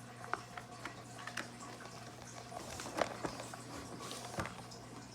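Light clicks and knocks from handling the plastic parts of a baby swing's vibration unit, with a few sharper knocks about three seconds in and again near the end.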